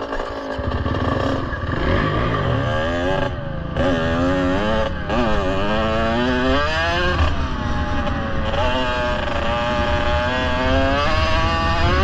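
Kawasaki KX65's small two-stroke single-cylinder engine revving and pulling away, its pitch climbing and dropping sharply several times as it shifts up through the gears, then running steadier at speed. A low rumble of wind and ground noise lies underneath.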